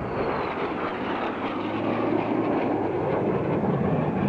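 Jet noise from a formation of BAE Hawk jets flying past, each with a single Rolls-Royce Turbomeca Adour turbofan: a steady rushing noise with a faint high whine that falls in pitch over the first second.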